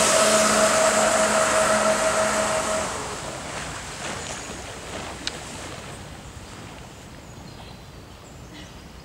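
Electric jet surfboard passing at speed: the steady whine of its jet drive over the hiss of water spray. The whine stops about three seconds in, leaving a hiss that fades away.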